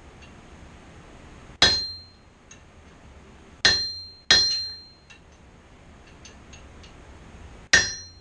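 Hand hammer striking a red-hot steel bar laid over a hardy cutter in the anvil, splitting the bar's end in half. Four sharp blows with uneven gaps, two of them close together in the middle, each with a short metallic ring, and a few light ticks between them.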